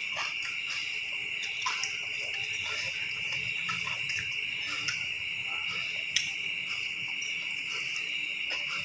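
Steady, continuous chirring of crickets, with scattered faint clicks and smacks from eating rice and fried chicken by hand off a plate.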